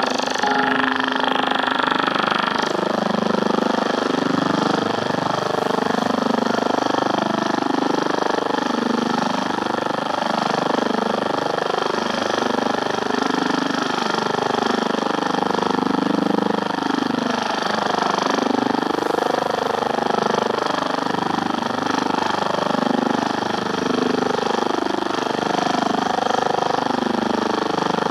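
Shortwave radio signal on 9580 kHz heard through a Sony ICF-7601 receiver's speaker: a steady, churning, helicopter-like noise that covers the BBC World Service broadcast.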